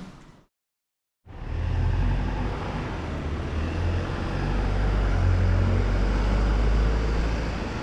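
Low, steady rumble of road traffic in an open urban street, following a brief gap of silence near the start.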